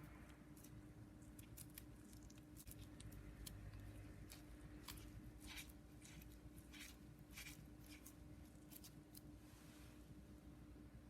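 Faint handling sounds while making daifuku by hand: scattered light clicks and a few short rustles, busiest around the middle, over a low steady hum.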